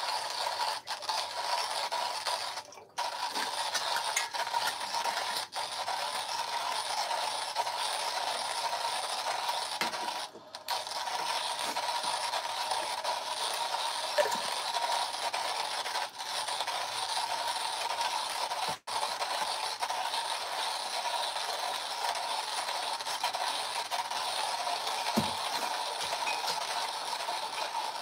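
Hand burr coffee grinder being cranked, crushing coffee beans in a steady grind that stops briefly three times.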